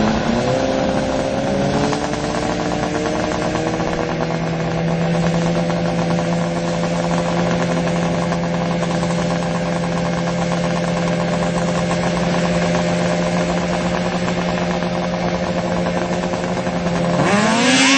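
Snowmobile engine running at a steady held speed, then revving up sharply near the end as the sled launches on grass.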